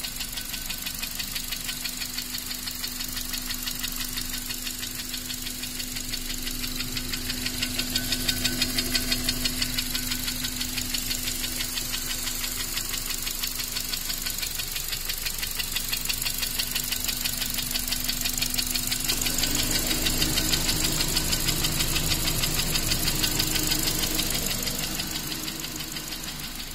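Honda Accord 7's K20A four-cylinder engine running with a fast, even knock from the top of the block at the second cylinder, a knock that appeared after the engine was starved of oil. The engine note grows louder twice, about eight and twenty seconds in.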